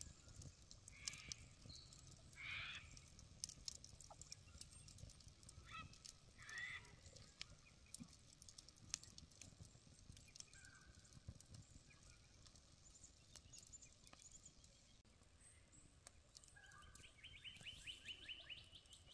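Faint crackling and popping of a wood campfire, with birds calling a few times in the background; near the end one gives a rapid trill.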